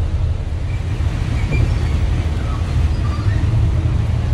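Steady low vehicle rumble, with a few faint short chirps higher up.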